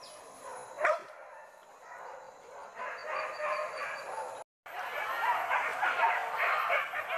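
Hunting dogs barking and yelping, several calls overlapping. They are faint at first and louder from about three seconds in. The sound drops out for a moment about halfway, and the barking is louder after it.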